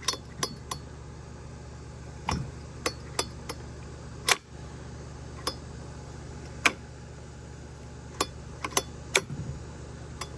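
Irregular light clicks, clinks and knocks of hard plastic and metal parts being handled, about fifteen in all, the sharpest a little past four seconds and near seven seconds in, over a steady low hum.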